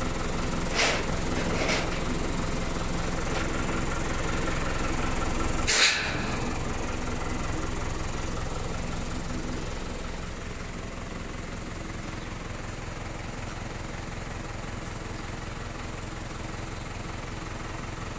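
An engine idling steadily, with a few sharp clicks near the start and a louder knock about six seconds in, the cab being handled as someone climbs in.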